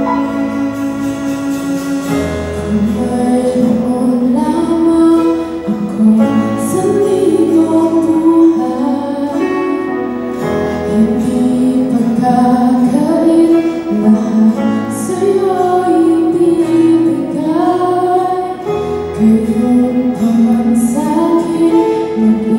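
A woman singing a Tagalog worship song with live band accompaniment including guitar; her voice comes in about two seconds in, after an instrumental lead-in.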